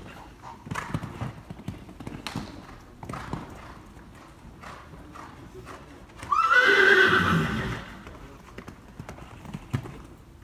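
Horse hooves cantering on sand footing, with regular dull thuds. About six seconds in, a horse gives one loud whinny lasting about a second and a half, its pitch rising and then falling.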